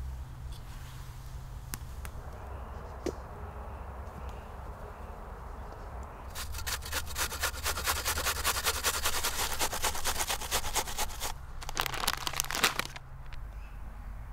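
An onion being grated on a metal box grater: rapid, rhythmic rasping strokes that start about six seconds in and run for about five seconds, with a shorter burst shortly after. Before that, a wood fire crackles with scattered pops.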